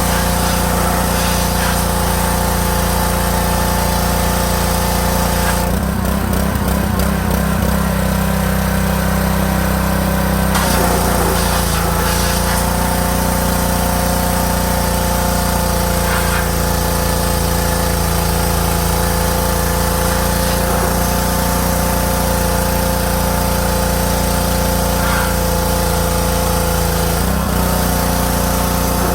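Honda GC190 single-cylinder engine of a Champion 3200 psi gas pressure washer running steadily under load. Its note shifts for several seconds about six seconds in, and again briefly near the end.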